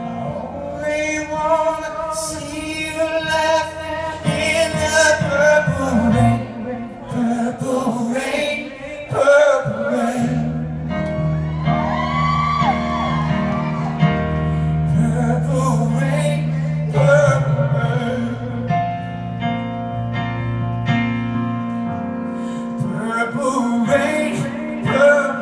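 Live male vocal ballad sung at a grand piano: sustained piano chords under a gliding, drawn-out voice, with curling vocal runs around the middle, heard from far back in the hall.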